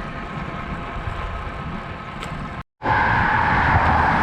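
Wind and road noise from a bicycle ride. After a brief dropout to silence about two and a half seconds in, louder steady traffic and tyre noise follows.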